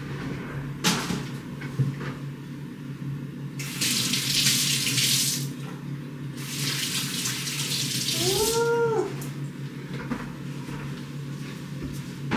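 Kitchen tap running in two short spells of a couple of seconds each, with a sharp clack about a second in and a brief rising-and-falling squeak near the end of the second spell.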